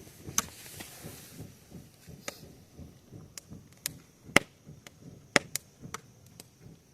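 Wood bonfire crackling: sharp, irregular pops, the loudest about four and a half and five and a half seconds in, over a low rustle.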